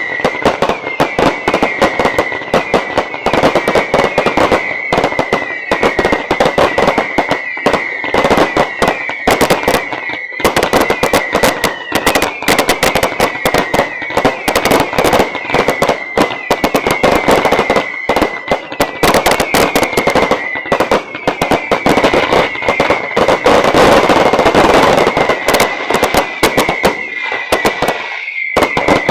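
Fireworks finale: a dense, continuous barrage of rapid crackling bangs, with a high whistle that repeatedly slides down and holds.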